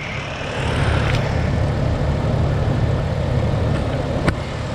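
Jeep Liberty engine idling steadily, heard from the engine bay, with a single sharp click about four seconds in.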